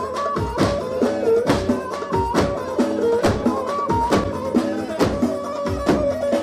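Turkish folk dance music for a halay: davul bass drums beating a steady rhythm under a repeating melody line.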